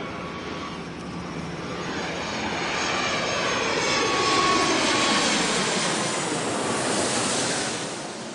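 Jet airliner flying past: the engine roar swells to its loudest about four to seven seconds in, its pitch sweeping downward as it passes, then fades near the end.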